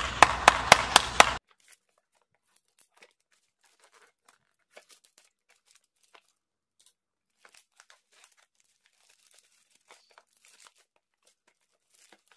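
Hand claps, about three a second over a steady hiss, cut off abruptly about a second and a half in. Then faint crinkling, snipping and tearing of a black plastic courier mailer bag being cut open with scissors and pulled apart.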